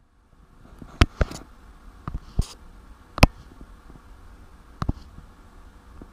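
Half a dozen scattered sharp taps and clicks, the loudest about three seconds in, over a low steady hum.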